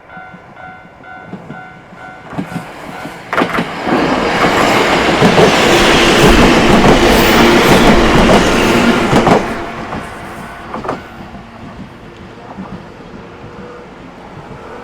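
Sangi Railway train passing over a level crossing. Wheel clacks over the rail joints start about three seconds in, then a loud rumble and clatter lasts about five seconds before fading away.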